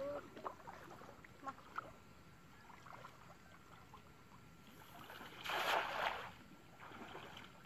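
A cast net thrown over shallow water lands with one short, rushing splash about five and a half seconds in. Before it come faint sloshes and small knocks of people wading.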